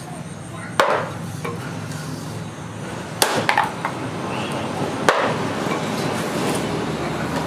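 Hammer knocking on the back of a large sword blade forged from chainsaw steel, driving its edge into a green bamboo pole: four sharp knocks, one about a second in, a quick pair in the middle and one more a couple of seconds later. A steady low hum runs underneath.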